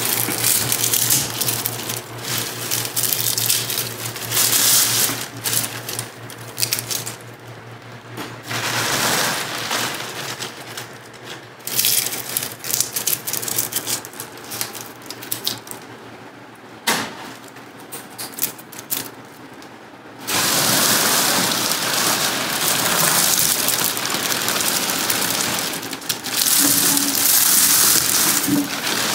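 Dry white sage leaves and stems crackling and rustling as they are broken by hand and packed into a perforated stainless-steel still basket, with a few sharp snaps of stems. From about 20 seconds in the crackle becomes dense and steady as the leaves are pressed down into the basket.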